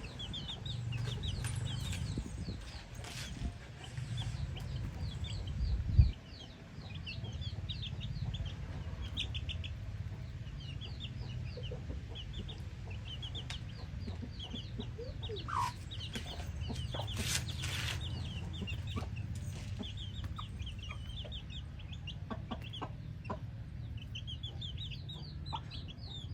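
Chickens: a brood of chicks peeping in quick high series throughout, with a hen clucking. A single sharp thump sounds about six seconds in over a steady low rumble.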